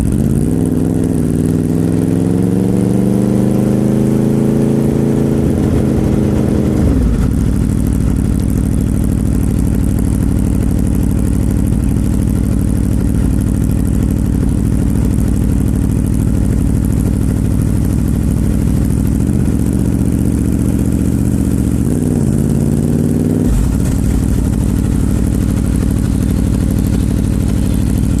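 Aprilia RSV4's V4 engine pulling on the road: its note climbs steadily for about six seconds and then drops sharply, runs on evenly, and rises again briefly past twenty seconds before dropping once more.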